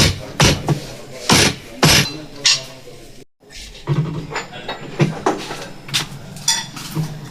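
Metal engine parts and tools clinking and knocking while a motorcycle engine is being assembled: separate sharp clinks every second or so, with a brief silent break about three seconds in.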